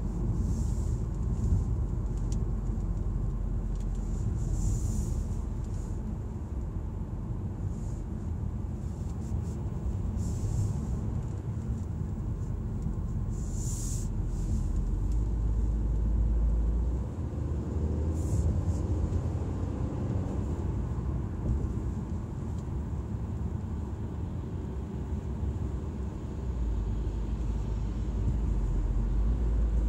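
Audi A4 being driven: a steady low rumble of engine and road noise whose deepest part shifts a couple of times, as with changes in engine load.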